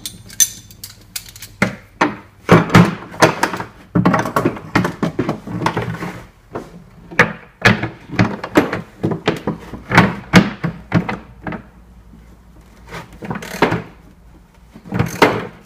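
Irregular knocks and clunks from a hollow plastic marine fuel tank being handled while a metal gravity-feed fitting is seated through its wall, some knocks ringing briefly in the tank.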